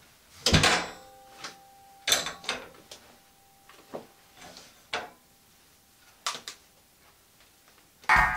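Clothes and a hanger being handled in a small tiled room: a string of separate sharp clacks and knocks with brief rustling as garments are hung on a door hook. The loudest knock comes about half a second in.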